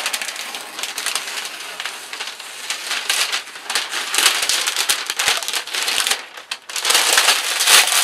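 Masking paper crinkling and crumpling as it is handled and pulled off a freshly sprayed model airplane wing, with masking tape peeling away. The crackle is busiest near the end.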